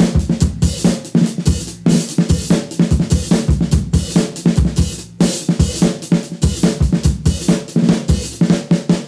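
Rock drum kit playing a busy run of hits, several a second, with other instruments beneath, in a band recording limited to four tracks to emulate a 1960s–70s tape sound.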